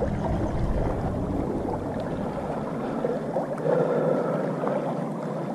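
Shallow river water lapping and gurgling against a gravel shoreline, a steady watery noise with a few faint clicks.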